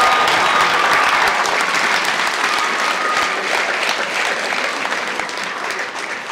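A crowd applauding, the clapping easing off gradually towards the end.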